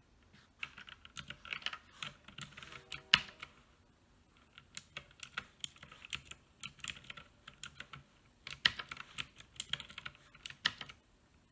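Keys on an Uhuru UMK-100 60% mechanical keyboard with clicky blue switches being pressed in quick, irregular runs of clicks, with a short pause about four seconds in.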